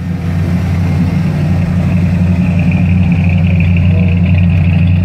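Ford 351M V8 with a two-barrel carburettor idling steadily at a raised idle, its idle upset by a suspected vacuum leak. A faint high steady tone joins about a second and a half in.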